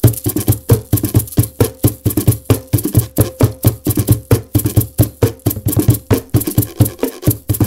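Layered found-object percussion groove: a plastic 5-gallon bucket played like a mridangam, struck plastic protein jugs, yogurt-container shakers and a Lay's potato-chip-can guiro. It runs as a steady, even rhythm of deep thumps and sharp clicks.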